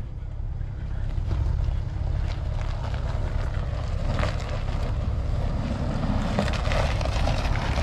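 Wind buffeting the microphone in a steady low rumble, with scattered faint clicks and ticks.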